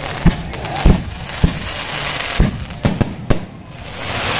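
Aerial fireworks shells bursting overhead: about seven sharp bangs in quick, uneven succession over a steady hiss of burning stars.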